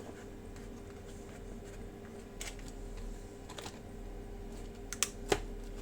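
A few scattered light clicks and taps from handling small airsoft gun parts, over a steady faint hum.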